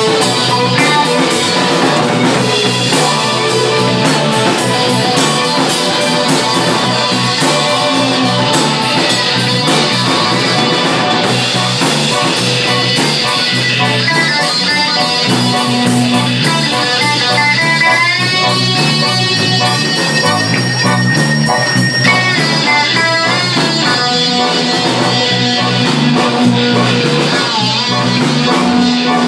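Live psychedelic rock band playing an instrumental passage: electric guitar over bass and a steady drum kit beat. A little past the middle, one long held note bends up and down for a few seconds.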